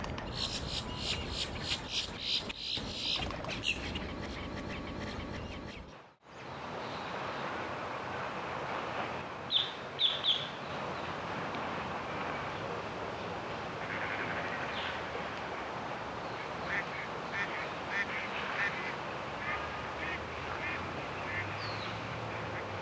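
Birds calling over a steady outdoor background. A dense chorus of high, pulsing calls fills the first several seconds, then the sound drops out briefly. After that come a few sharp chirps and, later, a run of short repeated calls.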